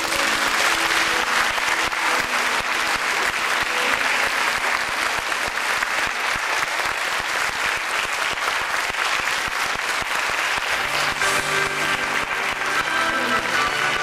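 A large theatre audience applauding after a live song with piano. About eleven seconds in, music starts under the applause.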